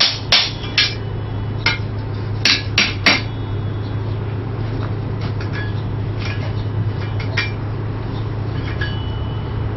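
Hammer blows on steel at the anvil: about six sharp strikes in the first three seconds, then a couple of lighter taps later on, over a steady low hum.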